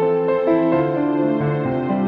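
Slow, gentle instrumental keyboard music, held notes changing every half second or so.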